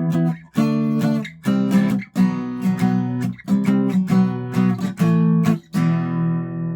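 Acoustic guitar strumming chords in a steady rhythm, about two strums a second, with the last chord left ringing near the end.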